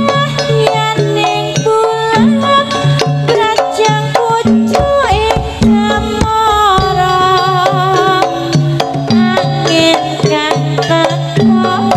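Javanese jaranan ensemble playing an instrumental passage: hand-drum (kendang) strokes over interlocking tuned percussion, with a melody line that bends and wavers about halfway through.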